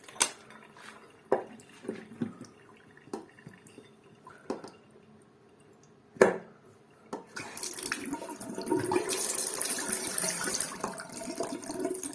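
Several sharp clicks and knocks of parts being handled, the loudest about six seconds in. Then water from a single-lever mixer tap starts running steadily about seven and a half seconds in.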